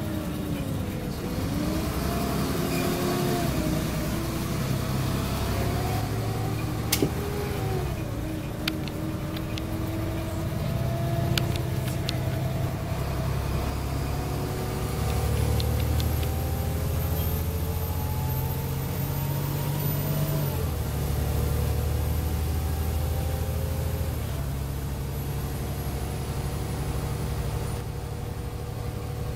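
Volvo B7LA articulated bus's diesel engine and driveline heard from inside the passenger cabin while on the move, a low rumble under a whine that climbs and then drops several times as the bus accelerates and changes gear. A few sharp rattles about seven to nine seconds in.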